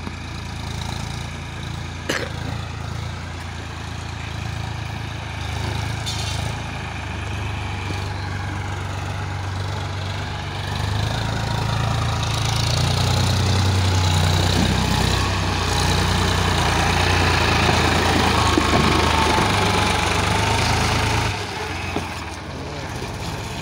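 Eicher 5660 tractor's diesel engine running under a heavy load as it pulls a fully loaded sugarcane trailer, a steady low engine sound that grows louder about halfway through as the tractor comes close, and drops off shortly before the end.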